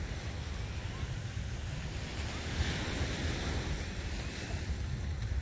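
Sea waves washing onto a beach, the surf swelling about halfway through, with wind buffeting the microphone in a fluctuating low rumble.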